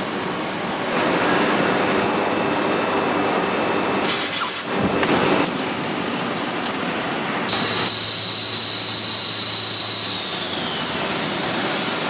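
Nilfisk T75 three-phase industrial vacuum cleaner running with a steady rushing noise. A brief sharp hiss comes about four seconds in, and from about halfway a high steady whine joins in, gliding down in pitch near the end.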